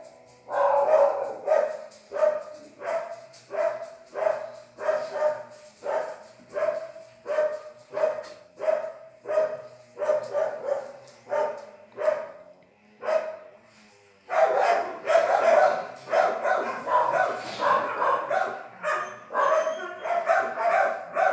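A dog barking over and over in a steady rhythm, about three barks every two seconds. After a short pause about two-thirds of the way through, the barking comes faster and louder.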